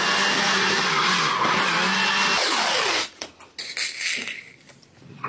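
Handheld electric power tool running steadily with a loud hiss and hum, then switched off about three seconds in, its pitch falling as it winds down. A few light clicks and rustles of handling follow.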